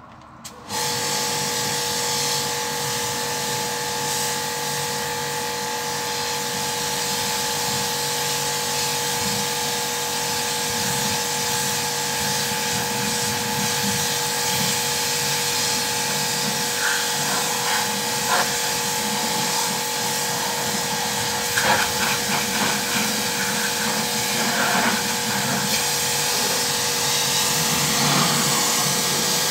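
Kärcher HD 5/15 C pressure washer, its pump freshly repaired, switched on about a second in, its motor and pump then running steadily with a steady whine over a hiss. In the later part the high-pressure jet sprays water onto a car, adding irregular spatter.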